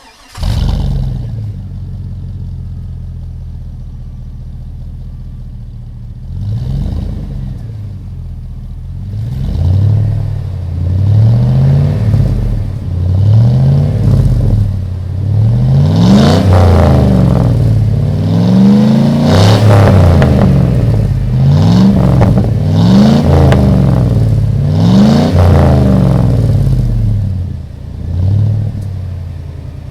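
Chevy Silverado's 5.3L V8 through its stock muffler, idling steadily and then revved again and again from about six seconds in, each rev rising and falling in pitch. The revs are loudest in the second half and ease back toward idle near the end.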